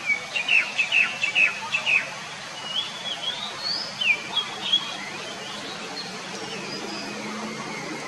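Oriental magpie-robin (kacer) singing: a quick run of sharp down-slurred notes, then a few higher whistled phrases, falling silent about five seconds in.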